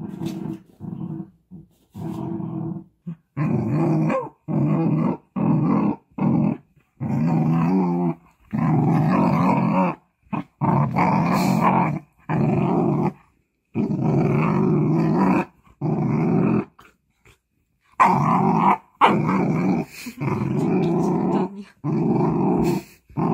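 A Korean Jindo dog growling over and over with its head pushed into a blanket. It makes a long series of growls, each from a fraction of a second to about two seconds long, with short breaks between them.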